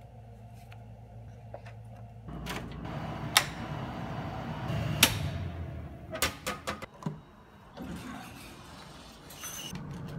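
Sharp clicks and knocks of a door and its latch being worked by hand: two loud clicks about three and five seconds in, then a quick run of smaller clicks.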